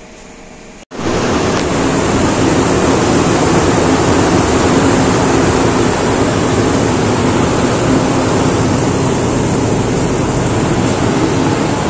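Red ducted axial exhaust fan running: a loud, steady rush of air with a faint hum under it. It starts abruptly about a second in, after a softer steady hum from a wall-mounted CKE exhaust fan.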